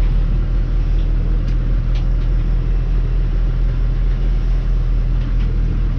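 Tractor engine running at a steady, even pitch as the tractor drives off, with a few faint ticks over the constant hum.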